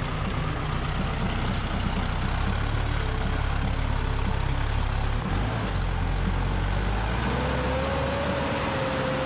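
Tractor engine running steadily. A faint steady whine joins it about seven seconds in.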